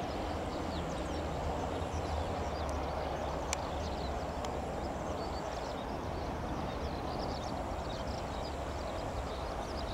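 Twin-engine Airbus airliner's jet engines running at low power as it rolls out and taxis after landing: a steady rush of engine noise. Small birds chirp over it, with one sharp click about three and a half seconds in.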